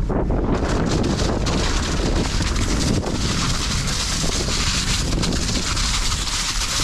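Wind rushing over an action camera's microphone as a mountain bike rides a leaf-covered dirt trail, with tyre noise and the frequent clicks and rattles of the bike. About three seconds in the sound turns hissier.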